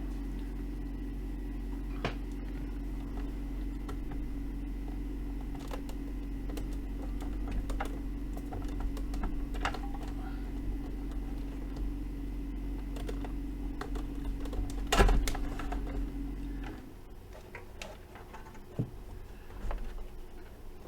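Steady low electrical hum from the powered amplifier test bench, with scattered sharp clicks of probe and hand handling on the bench. The loudest click comes about 15 seconds in, and the hum cuts off suddenly about two seconds later.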